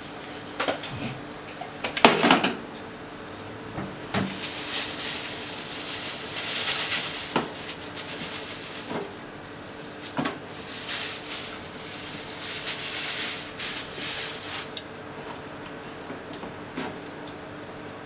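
Kitchen clatter of dishes and utensils knocking and clinking every second or so, the loudest knock about two seconds in, over a steady low hum.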